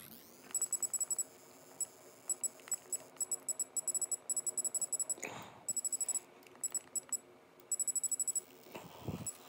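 Key-press beeps from a Futaba GPB-1 gyro program box: short, high electronic beeps in quick runs of several at a time, with pauses between runs, as the swash servo neutral trim values are stepped up and down.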